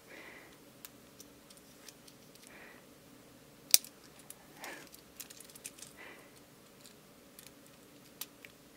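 Small plastic pieces of a Kinder Surprise toy car being handled and pressed together by hand to snap them into place: soft rustling and scattered light clicks, with one sharper click about four seconds in.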